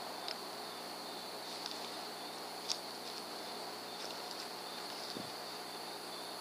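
Steady high chirring of night insects, likely crickets, with a few brief louder chirps.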